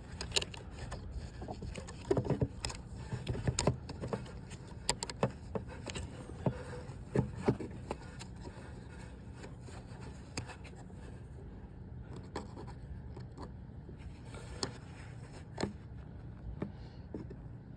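Irregular plastic clicks, taps and scrapes of a replacement door mirror glass being handled and pressed onto its mirror housing, busiest in the first half, over a low steady hum.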